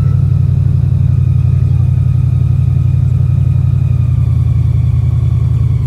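Boat engine running steadily at low speed, a loud, even, low-pitched drone with a fast regular pulse.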